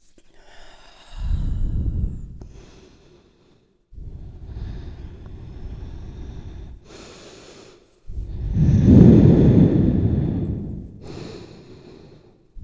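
A person taking a few long, noisy breaths through the nose, the loudest about nine seconds in, while the herbal sneezing powder just taken works toward bringing on a sneeze; no sneeze comes yet.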